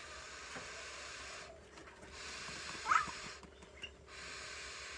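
An inflatable toy castle being blown up by mouth: three long breathy blows of air rushing through its valve, each broken by a short pause to breathe in. A child gives a brief rising squeal about three seconds in.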